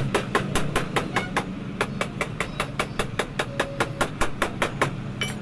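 Rapid, evenly spaced taps of a small hammer on the metal top of a Maruti Suzuki Ertiga shock absorber clamped upright in a vise, about four to five strikes a second, stopping near the end.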